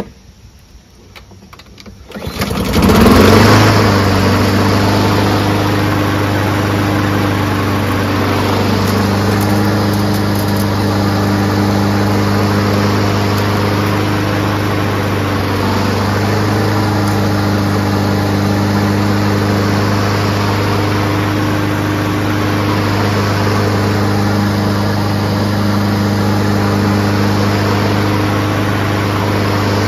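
Honda GCV160 single-cylinder lawnmower engine starting about two seconds in, then running steadily at one speed.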